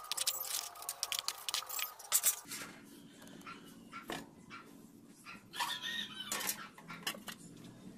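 A metal trowel scraping and slapping through wet cement mix, a quick run of gritty scrapes that stops about two and a half seconds in. After it comes a low hum, with a short animal whine about six seconds in.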